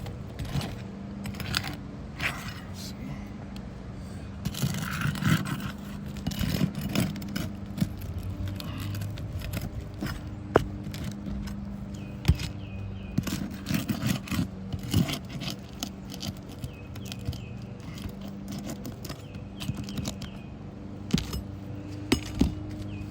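Metal roofing snake tool scraping and clicking against shingles and nails in irregular strokes as it works under the shingle to remove nails, over a steady low hum.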